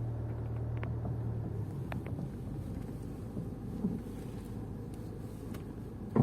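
Range Rover Evoque driving, heard from inside the cabin: steady road and drivetrain noise with a few faint knocks and a sharp loud knock at the end. The knocking comes from the front suspension, on the left side, and sounds terrible.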